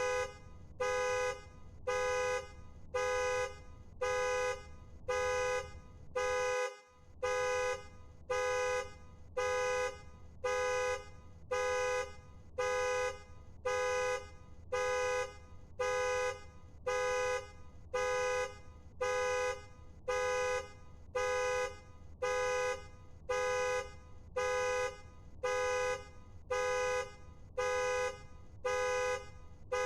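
Car alarm sounding the car's horn in steady, evenly spaced honks, about one short blast a second.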